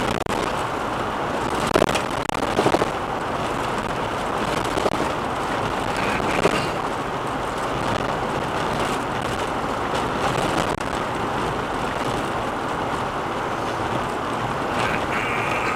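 Car interior noise at about 90 km/h on a rough, worn asphalt road: steady tyre and road rumble, with a few sharp knocks about two, three, five and six and a half seconds in as the car jolts over bumps in the surface.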